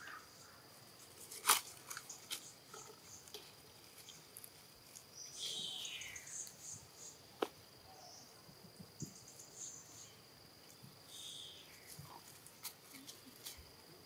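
A steady, high insect drone runs under scattered dry-leaf crackles and sharp clicks as macaques move and handle things in the leaf litter. A short high call falling in pitch comes about five seconds in, and a fainter one near eleven seconds.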